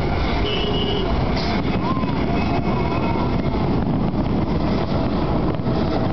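Steady noise of a large crowd gathered outdoors, over a heavy continuous low rumble.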